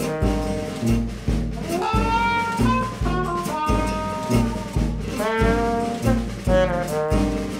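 Upbeat jazz background music, a brass horn melody over a steady bass and drum beat.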